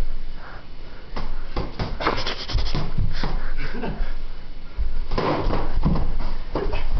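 Scuffling and rubbing with many irregular knocks and low thumps from two people sparring with boxing gloves, busiest from about two seconds in and again around five seconds.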